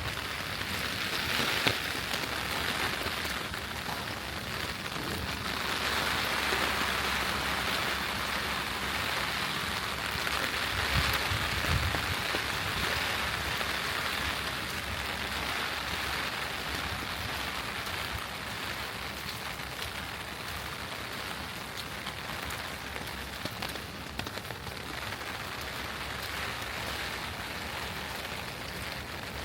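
Steady rain falling, an even hiss of drops, with a single sharp tick about two seconds in and a brief low rumble about eleven seconds in.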